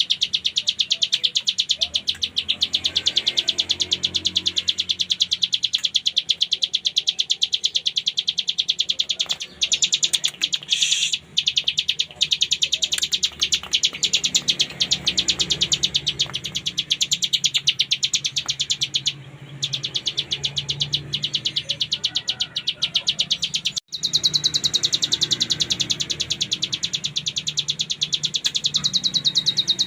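Ciblek gunung, a small Indonesian prinia, singing a very fast, continuous buzzy trill ('ngebren'), breaking off briefly twice in the second half.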